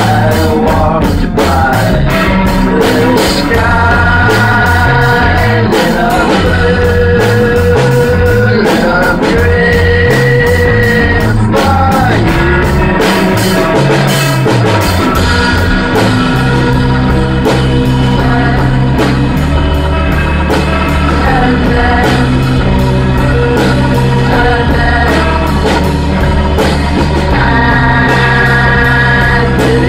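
Live room recording of a rock band improvising: drums, bass and guitar playing steadily, with singing sent through a Leslie rotating speaker cabinet. About halfway through the bass settles into long held low notes. The vocals picked up in the room blow out the drum sound a bit.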